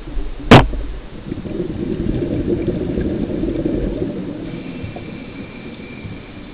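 Scuba diver's exhaled bubbles gurgling and rumbling past an underwater camera housing, after a sharp click about half a second in. A faint thin whine sets in near the end.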